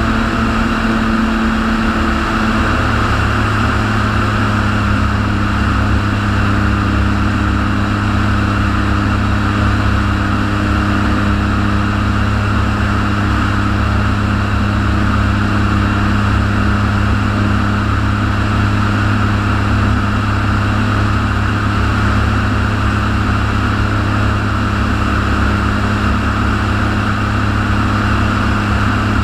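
Atol 650 LSA amphibious light aircraft in level flight: its engine and propeller give a steady drone with a hiss above it. The engine note settles slightly lower about two seconds in.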